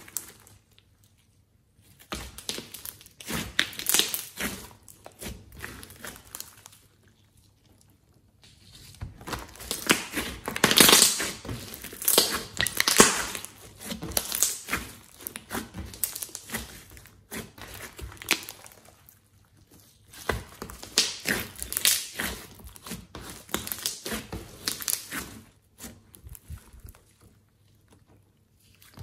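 Hands squeezing, kneading and stretching a large mass of thick glossy slime, the slime squishing and crackling in three long spells with short quiet pauses between.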